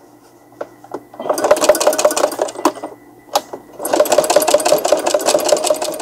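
A decades-old Brother computerized sewing machine sewing an overcast (zigzag) stitch along a fabric edge. It runs in two stretches of rapid, even needle strokes: the first starts about a second in, and the second follows a pause of about a second in the middle, which holds a single click.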